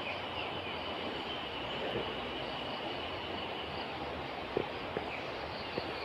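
Steady outdoor ambience in a bamboo forest: an even hiss with a thin, steady high-pitched whine that stops about four seconds in, and a few faint clicks near the end.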